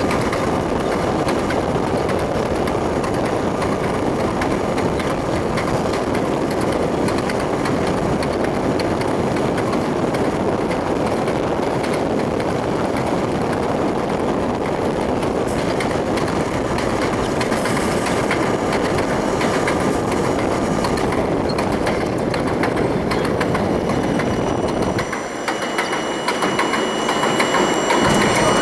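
R32 subway car running along the track, heard from inside the front car: a steady rumble of wheels on rail with some clickety-clack. Near the end the low rumble drops away and a thin high whine comes in.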